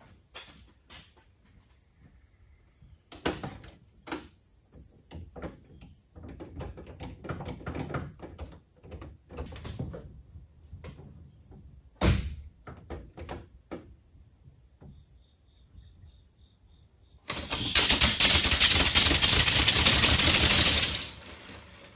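Scattered knocks and clicks, with a thump about twelve seconds in. From about seventeen seconds, a home-built compressed-air engine in a VW Beetle runs loudly for about four seconds as the car moves off: a fast pulsing hiss of escaping air that then cuts off. The builder finds it too weak to drive the car fast and puts this down to undersized 4 mm high-pressure valves.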